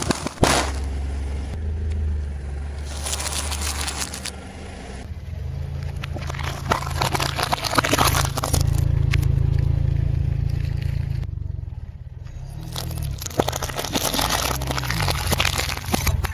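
A car's tyre rolls slowly over objects and crushes them, with bursts of crackling and crunching that come several times. Under it the car's engine runs at low revs.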